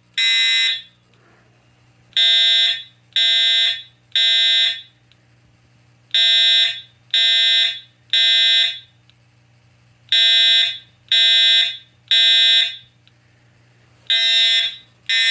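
Edwards Integrity 757-7AT fire alarm horn sounding the code 3 (temporal-three) evacuation signal: groups of three loud blasts about a second apart, each group followed by a pause of about one and a half seconds. A faint low hum is heard between the blasts.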